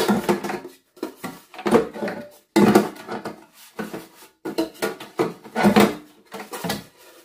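Baking pan and parts of a new bread maker knocking and clattering as the pan is worked into place in the machine: a run of irregular short clunks with pauses between.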